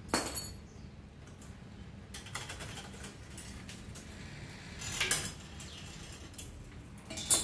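Metal clinks and light clatter of hand tools and bicycle parts being handled while a mountain bike is taken apart, with sharp clinks at the start, about five seconds in and near the end.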